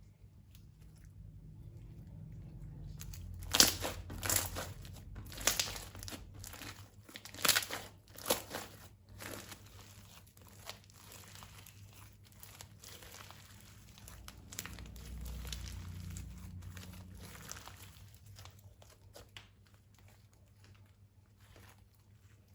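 Thin plastic being crinkled and crackled by hand, as in slime-making with plastic piping bags: a run of sharp crackles in the first half, then softer, scattered crinkling with some low rumble of handling.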